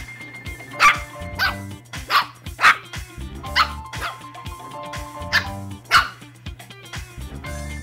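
Two-month-old Shih Tzu puppies barking during a play-fight: about seven short, high, sharp barks, each falling in pitch, over background music.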